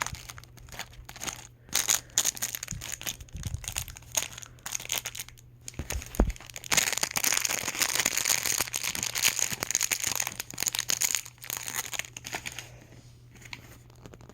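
Packaging crinkling and rustling in the hands as it is opened to get at small doll earrings, most continuous in the middle and tapering off near the end.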